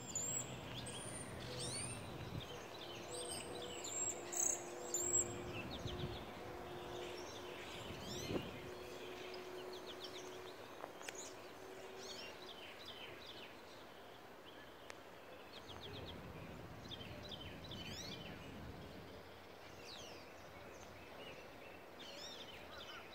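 Small birds chirping repeatedly in short, quick, sweeping notes, loudest about four to five seconds in, over outdoor background noise. A faint steady drone runs under the first half and fades out about twelve seconds in.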